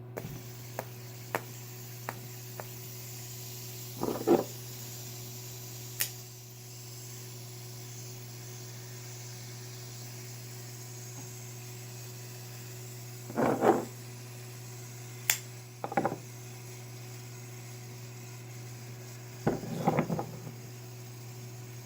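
A steady low hum with scattered clicks and several short spells of hard clattering from a fidget spinner and knives being handled.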